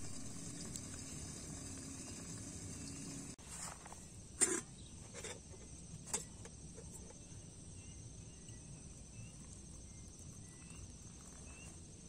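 Insects chirring steadily, with a few sharp knocks and clinks of a camping kettle being handled on a gas canister stove, the loudest a little over four seconds in.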